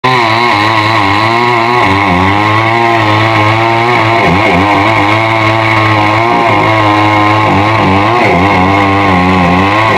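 Chainsaw running under load while cutting wood, its engine pitch wavering up and down as the chain bites.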